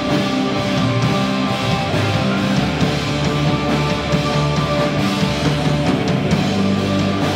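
Live rock band playing loud, heavy music with a dense, unbroken sound: electric bass, drum kit and keyboards.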